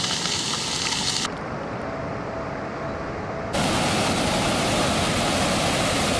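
Small floatplane's engine and propeller, a loud steady rushing noise with no clear tone. It drops quieter about a second in and comes back louder after about three and a half seconds, each change abrupt.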